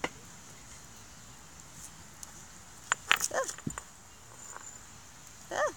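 Wood campfire crackling, with a cluster of sharp snaps about three seconds in. Two short, high, whimpering squeals sliding up and down in pitch, one right after the snaps and one near the end.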